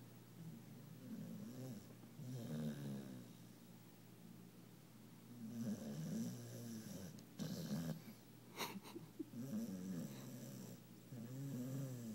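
Pit bull puppy snoring in deep sleep: about four rough, pitched snores, one on each breath, with quiet between them. A sharp click comes about two-thirds of the way in.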